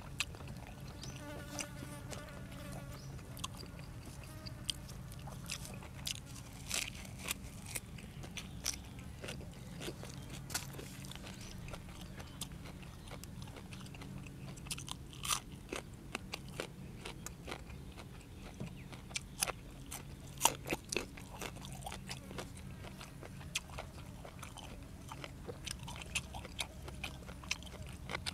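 A person eating blanched squid with raw vegetables, chewing with irregular crisp crunches. A steady low hum runs underneath.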